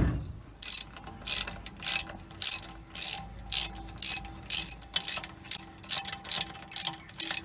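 A thump, then a socket ratchet wrench clicking in short, even strokes about twice a second as it backs out the bolts holding the engine fan onto the water pump hub.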